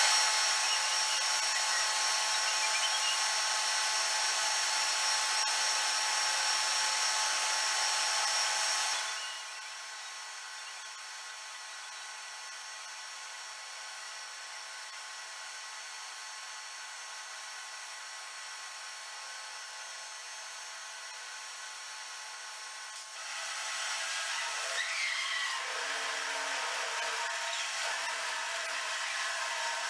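Metal lathe running with a steady gear whine while turning a steel bar with a tool bit. About nine seconds in the sound drops to a quieter steady run. Near the end it rises again as a drill bit in the tailstock bores into the spinning work.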